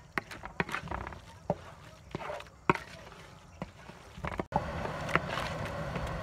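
Spatula scraping and knocking against a large metal pan in quick, irregular strokes while stirring a dry spice mix.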